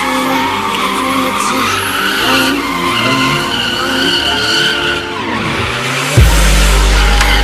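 Electronic music with held notes, a falling sweep and then a heavy bass drop about six seconds in, mixed with a drifting car's tyres skidding.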